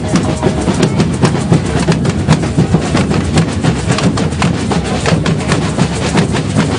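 Street carnival drum corps playing snare and bass drums together in a fast, steady rhythm, loud and close.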